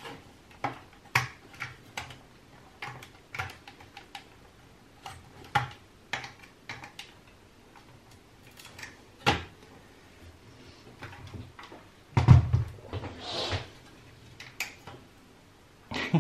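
Hands working the plastic clips and front panel of a Pioneer A-445 amplifier: scattered clicks and small knocks of plastic, with a louder bump and scraping about twelve seconds in.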